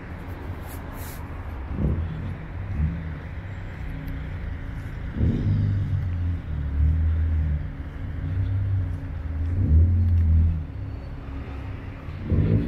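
Street traffic: car engines running, with a low rumble that swells and fades several times as vehicles move past.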